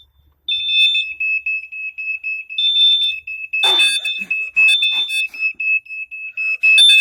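Two smoke alarms sounding at once as they are set off by smoke in a test. A lower-pitched alarm beeps rapidly and without a break from about half a second in, while a higher-pitched alarm cuts in and out with longer beeps.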